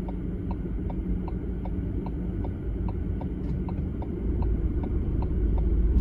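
Car's right-turn indicator ticking steadily, about two or three ticks a second, while signalling for the third exit at a roundabout, over the low rumble of the idling engine and traffic. The rumble grows louder about four seconds in as the car pulls forward.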